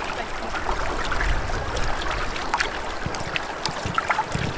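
Flowing river water lapping against the side of a boat, with scattered small drips and splashes.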